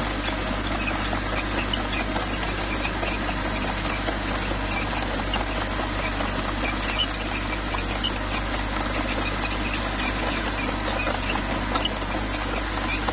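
Small bulldozer working: its diesel engine runs steadily under a constant low hum, with many scattered sharp clicks and crackles from the tracks and the rock and gravel being pushed.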